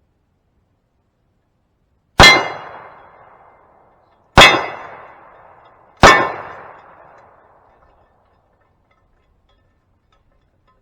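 Three .45 ACP pistol shots from a 1911, each with the clang of the hanging steel plate target ringing out and dying away over a second or so. The shots come about two seconds apart.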